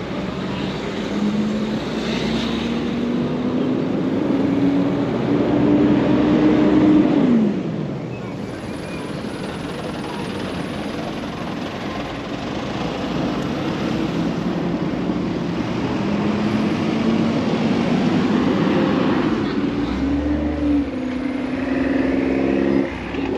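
Road traffic passing close by: motor vehicle engines rising steadily in pitch as they accelerate, over a constant hiss of tyres on the road. The first engine note falls away abruptly about seven seconds in, and another climbs again later on.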